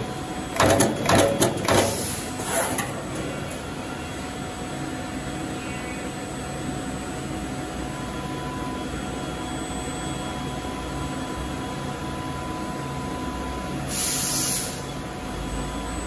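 Automatic terminal crimping machine at work: a quick run of sharp mechanical clacks in the first few seconds, then a steady hum, with a short hiss near the end.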